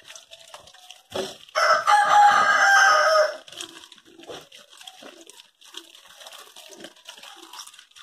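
A rooster crows once, loudly, for about two seconds starting about a second and a half in. Under it, a tap runs onto vegetables being scrubbed by hand in a steel sink.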